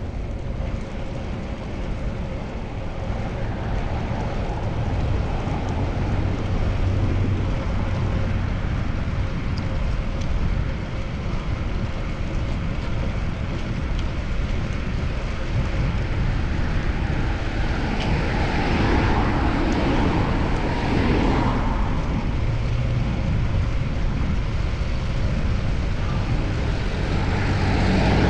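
Street traffic noise with a steady low rumble, heard from a moving bicycle. A vehicle goes by louder about 18 to 22 seconds in.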